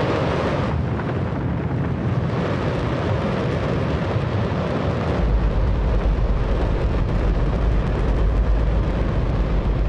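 Space Shuttle main engine, burning hydrogen and oxygen, test-firing on a static test stand: a loud, continuous roar. A deep rumble strengthens about five seconds in.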